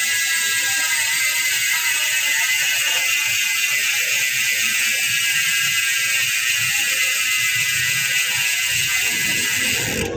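Bicycle rear freehub spinning freely, its six pawls clicking against the ratchet ring in a fast, even buzz.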